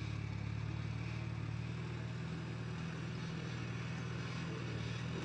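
Old tractor engine running steadily at an even speed, with no revving.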